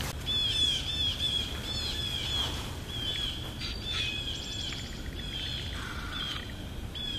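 A songbird singing in woodland: runs of quick, high chirping notes, phrase after phrase.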